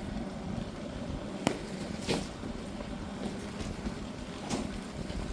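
Steady road and engine rumble of a Class C motorhome driving, with one sharp click about a second and a half in and a couple of softer knocks later.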